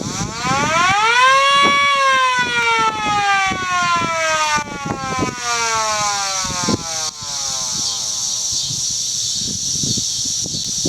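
Modified Federal Signal 2T22 electromechanical siren giving a short burst of the custom wail signal: the pitch climbs quickly for under two seconds, then the siren coasts down slowly over about six seconds and fades out. A steady high hiss runs underneath.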